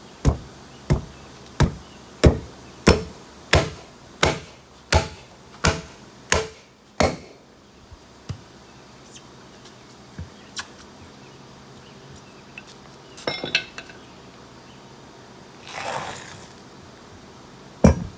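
Duckbill hammer striking a tire bead down off a steel wheel rim to break it loose: about eleven steady blows, roughly one and a half a second, for the first seven seconds. After that come a few scattered light taps and clinks, a short scuff and one more blow near the end.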